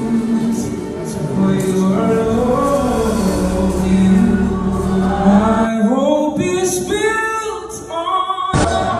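Voices singing a slow gospel hymn in long held notes; a low steady background layer drops away about six seconds in.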